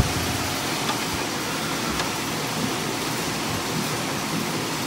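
Steady mechanical hum of background machinery, with a single sharp click right at the start and a faint tick about two seconds in.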